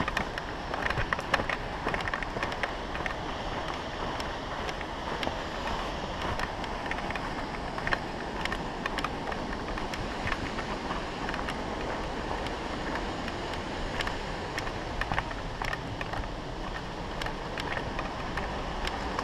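Mountain bike ridden down a rough forest trail through snow and mud: a steady rushing noise with frequent clicks and knocks as the bike rattles over the bumps.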